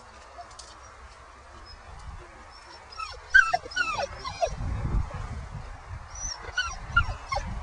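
Dog, an Old Danish Pointer, whining: a quick string of short high whines, each falling in pitch, starting about three seconds in and coming again near the end. Bursts of low rumble come with the later whines.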